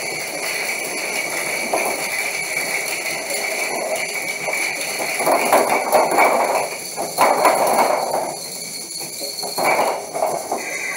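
Small electric motors of a VEX IQ robot whining steadily as it drives and works its mechanism. Plastic parts and game blocks knock and clatter, busiest in the middle stretch, with a few sharp clicks.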